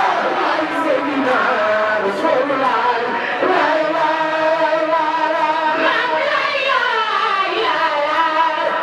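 A large group of women chanting a devotional song together in unison, with long held notes that slide up and down.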